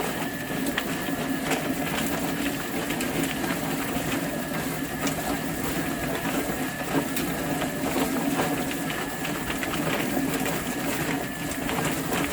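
Chicken plucker running: a steady motor hum with frequent irregular knocks as the scalded birds tumble inside it.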